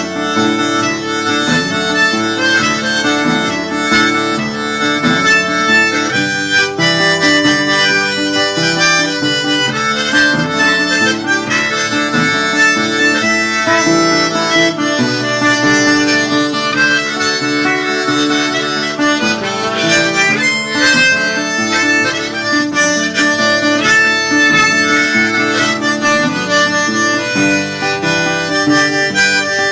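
Diatonic harmonica playing a Cajun-style instrumental break, its chords and melody played to sound like a Cajun accordion.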